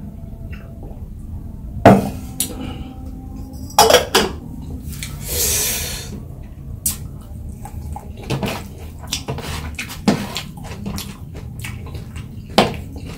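Spoon clinking and scraping against a plate during a meal of rice and side dishes, a string of sharp knocks, the loudest about two seconds in, four seconds in and near the end, with a longer rustling noise a little past five seconds.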